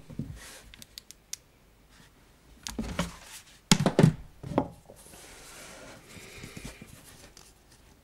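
Objects being handled and set down on a wooden tabletop: light clicks and taps, then a couple of louder knocks about four seconds in.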